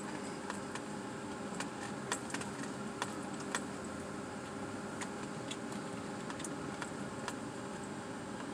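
Steady running noise of a vehicle driving slowly, heard from inside the cabin, with light clicks and rattles scattered through it.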